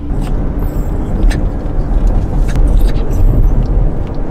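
Steady low rumble of road and wind noise inside a moving car's cabin.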